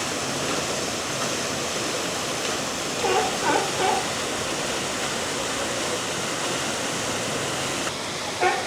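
A steady rush of water, with a few brief pitched calls or voices about three seconds in.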